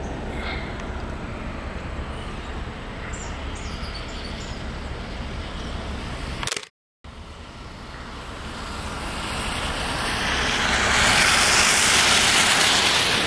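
Steady outdoor background noise with a low rumble, cut off abruptly about halfway through. Then a pickup truck approaches on a wet road, its tyre hiss on the wet pavement growing steadily louder and loudest near the end.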